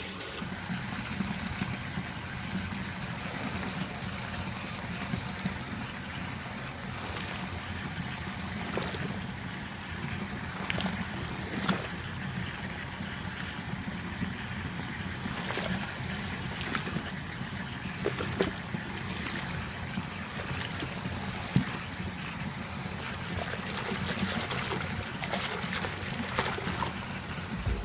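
Water running and splashing in a bubble-filled bathtub: a steady rush of water from a handheld shower spray, with scattered sharp splashes, and a hand swishing through the foamy water near the end.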